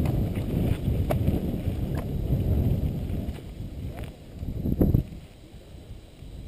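Wind rumble on an action camera's microphone and a mountain bike rattling over a sandy dirt trail, with scattered sharp clicks from bumps. A heavy knock comes about five seconds in, and then the noise drops off as the bike slows.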